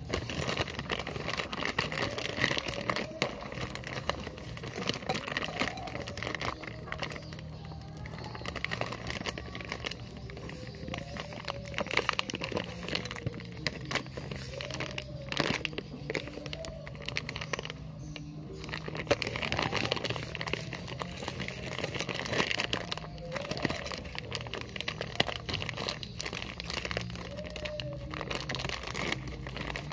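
Clear plastic parts bag crinkling and rustling as it is handled, with music playing in the background.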